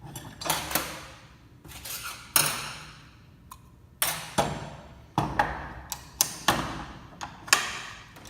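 Metal clanks and clicks as a 4L80E transmission's center support and its drum are handled and set up in a press to compress the piston spring. The loudest clank comes about two and a half seconds in, and the knocks come closer together in the second half.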